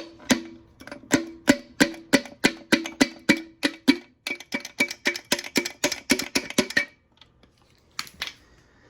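Repeated metal-on-metal taps, about three to five a second and quickening, each with a short ringing tone, as a main bearing cap is worked loose on a Ford 5.4 3V V8. The taps stop suddenly, and two more come near the end.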